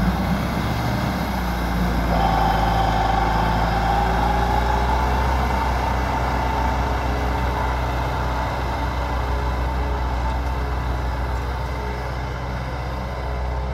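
Massey Ferguson 385 tractor's four-cylinder diesel engine pulling under heavy load, hauling an overloaded soil trolley: a steady low drone with a whining tone that rises slightly a couple of seconds in, fading slowly as the tractor pulls away.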